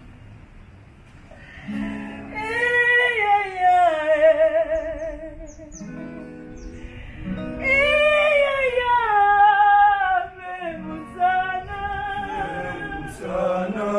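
Singing: a voice holding long notes with a wide vibrato in two long phrases that rise and fall, then shorter notes near the end, over a steady low accompaniment.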